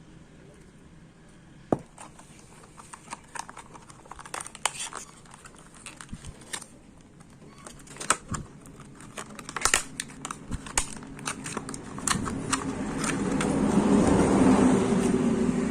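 Irregular clicks, taps and crinkling of small parts being handled, likely fan parts and wire being worked by hand. About three-quarters of the way in, a steady drone with a low hum swells up and becomes the loudest sound near the end.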